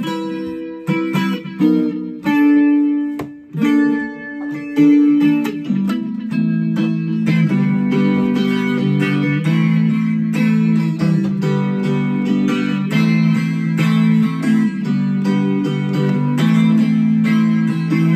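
Baritone ukulele being played: single plucked notes ringing out in turn, then steady chords strummed from about six seconds in.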